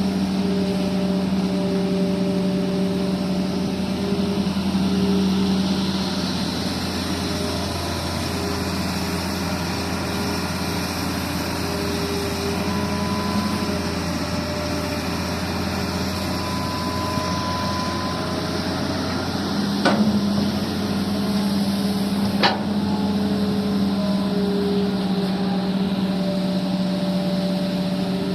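Excavator's diesel engine running steadily, with two sharp knocks about two and a half seconds apart, roughly two-thirds of the way through.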